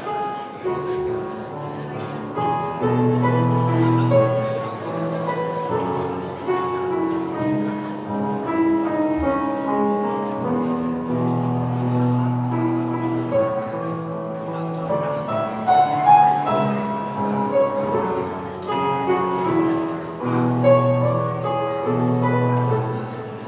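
Piano playing the introduction to a choir song: long held low notes under a moving melody.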